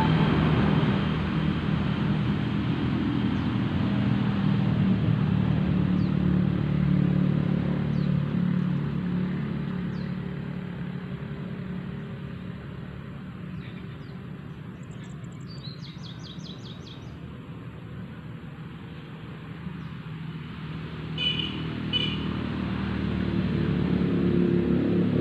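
An engine running with a steady low hum that fades away through the middle and grows louder again near the end. A few short bird chirps come through in the quieter stretch.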